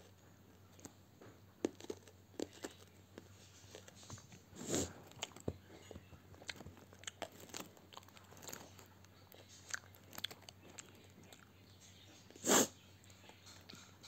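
Close-up chewing of gum, soft mouth clicks and smacks, to soothe a mouth burning from a raw green chili. Two louder short rushes of noise come about five seconds in and near the end.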